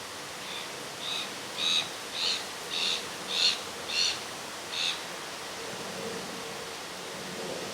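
A bird calling a run of about eight short, high notes, roughly two a second, that stops about five seconds in, over a steady rushing background noise.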